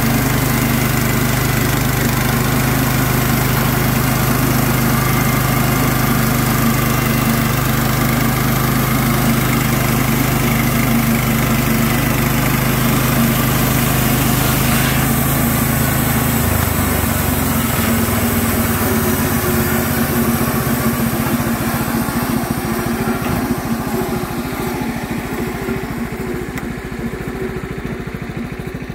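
Small gasoline engine of a Clarke model 50 portable bandsaw mill running steadily as the mill saws white pine. The engine note changes a little past halfway, and the sound fades gradually toward the end.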